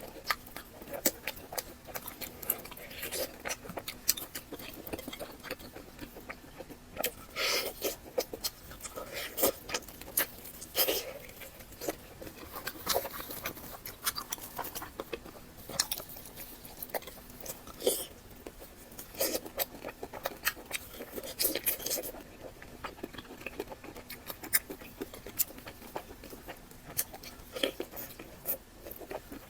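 Close-miked chewing and eating mouth sounds of someone eating fatty pork belly: a run of irregular short clicks and smacks with brief pauses.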